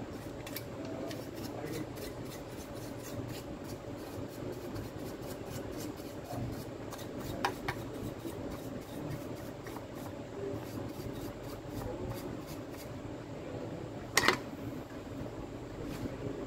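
Paintbrush bristles scrubbing the inside of a plastic cordless-drill housing half: a steady scratchy rubbing, with one sharp knock about fourteen seconds in.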